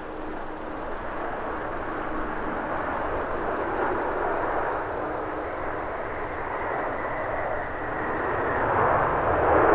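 Jet engines of a landing Boeing 787 airliner: a steady rush that grows louder toward the end as the plane touches down and rolls out on the runway.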